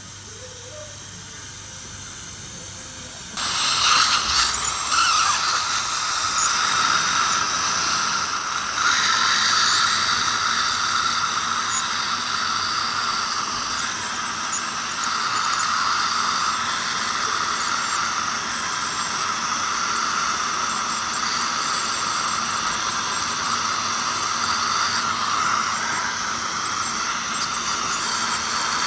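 Ultrasonic dental scaler running with its water spray, together with the hiss of a saliva ejector, as it scales thick tartar off the lower front teeth. The steady high hiss starts suddenly about three seconds in.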